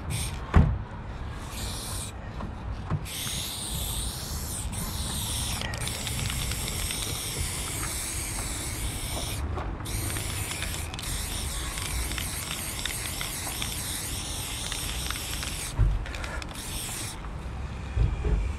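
Aerosol spray-paint can spraying a graffiti piece in several long hissing bursts with short breaks between them, stopping about three-quarters of the way through. A low rumble runs underneath, and there are a few short thumps.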